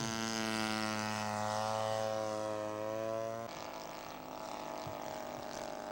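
Engine of a radio-controlled scale model Spitfire running steadily in flight. About three and a half seconds in, the sound cuts abruptly to a quieter, more distant engine.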